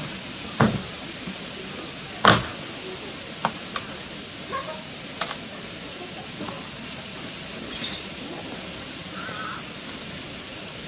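A steady, high-pitched hiss runs throughout. Over it are two sharp wooden knocks, one under a second in and a louder one just after two seconds, as the wooden door of a meerkat hut is handled, then a few lighter clicks. A few faint short chirps come through the hiss.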